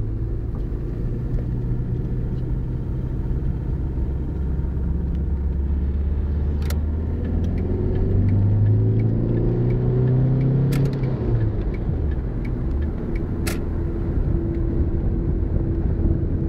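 A car's engine and road rumble, heard inside the cabin. The engine pitch rises from about eight seconds in as the car accelerates, then drops at about eleven seconds. A few sharp clicks are heard along the way.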